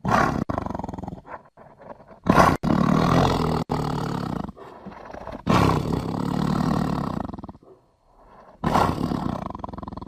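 Tiger roaring: four loud, drawn-out roars, each lasting one to two seconds, with short pauses between them.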